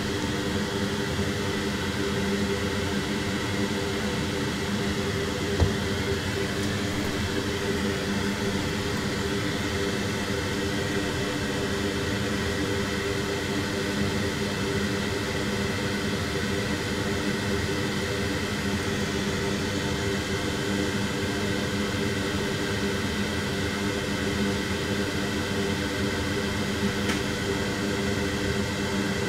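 A small electric fan or blower running steadily with an even whirring hum, with a single sharp click about six seconds in.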